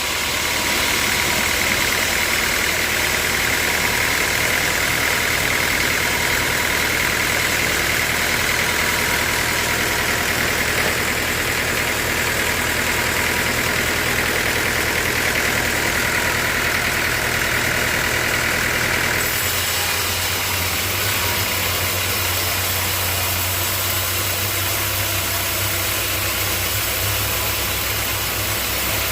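Band sawmill running steadily, with a loud high hiss from the blade that stops abruptly about two-thirds of the way through. The mill's motor keeps running after it.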